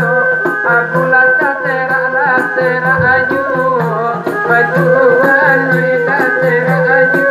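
Rabab Minang music played through a PA: a bowed rabab fiddle and a singer's wavering melody over a held tone, with light percussion ticking a steady beat several times a second.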